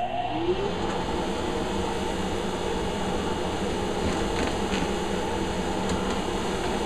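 Shop dust-extraction vacuum starting up, its pitch rising over about half a second, then running steadily with a rush of air as its hose is drawn across the table saw top.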